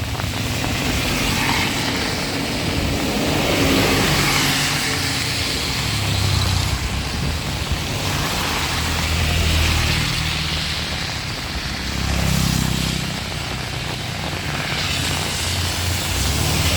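Heavy rain hissing steadily, under a low rumble that swells and fades several times as strong wind gusts.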